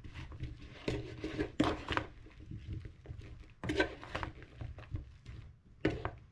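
Metal spoon scraping and knocking against a ceramic bowl as cauliflower florets coated in oil and spices are tossed, in irregular strokes with a few louder clinks.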